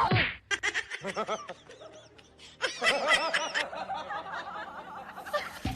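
Someone laughing in short, quick bursts: two spells of giggling about two seconds apart, then fainter.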